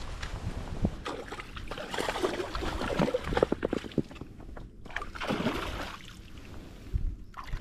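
Water sloshing and splashing in uneven surges, with a few sharp clicks.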